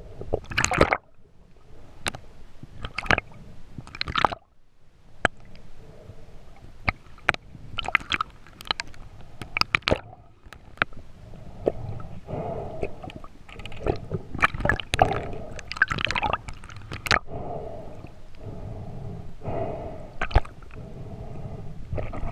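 Underwater sound of a diver moving with a speargun: water rushing and swishing against the camera housing, with scattered sharp clicks and knocks. From about twelve seconds a low steady hum runs under it.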